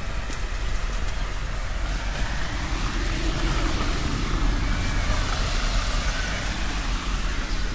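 A vehicle passing on a wet road: tyre hiss swells to a peak about halfway through, then fades, over a steady hiss of rain.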